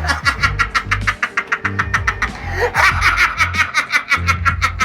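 Background music with a bass line, under a fast, rapidly pulsing laugh, a laughing sound effect.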